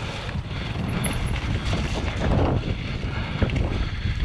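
Mountain bike rolling fast along a forest dirt trail and across a wooden boardwalk: tyre rumble with irregular knocks and rattles from the bike, and wind buffeting the camera microphone, a little louder about halfway through.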